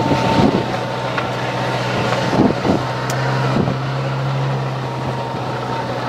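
A vehicle running at a steady pace: a constant low hum with a thin high whine held throughout, over a hiss of wind and road noise.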